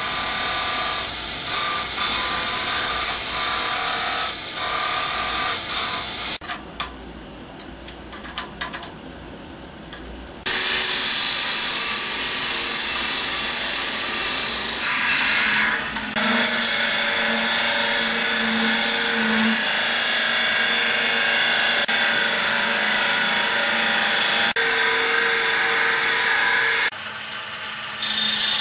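Pinnacle wood lathe running while the spinning pepper-mill blank is cut and bored: a steady hissing scrape of tool and drill bit in the wood. It goes quieter for a few seconds about a quarter of the way in, and a steady low hum joins a little past halfway.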